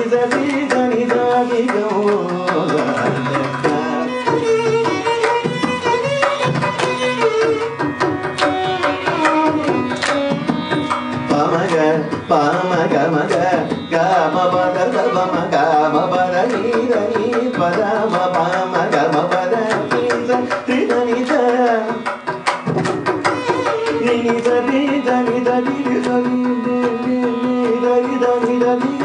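Carnatic classical music: a male vocalist sings in gliding, ornamented phrases, shadowed by a violin and driven by mridangam strokes. The piece is a composition in the raga Choornikavinodini, set to Adi tala.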